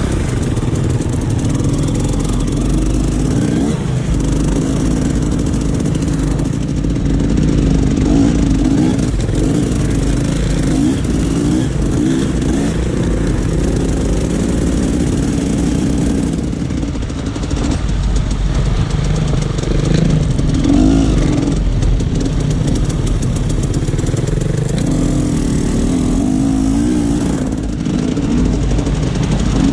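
Off-road dirt bike engine running under changing throttle, its revs rising and falling continuously.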